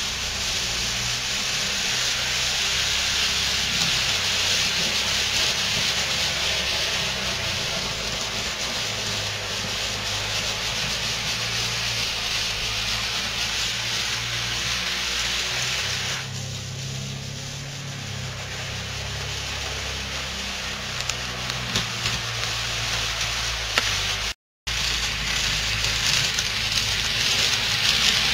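Model trains running on an HO/N scale layout: a steady whirr and rumble of small electric motors and wheels on track, with a hiss over it. The hiss dips for a couple of seconds about halfway, and the sound cuts out for a split second near the end.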